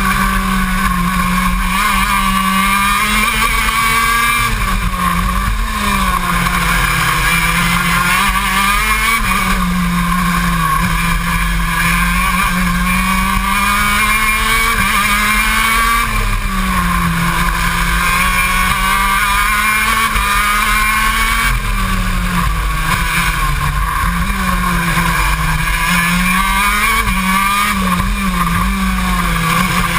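125cc two-stroke KZ2 shifter kart engine at full race pace, heard close up from the kart itself. Its pitch climbs repeatedly under acceleration and drops sharply each time the driver brakes and downshifts for a corner.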